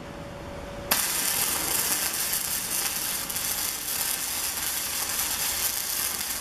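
Electric welding arc on steel square tubing, striking about a second in and then crackling and sizzling steadily as the bead is laid.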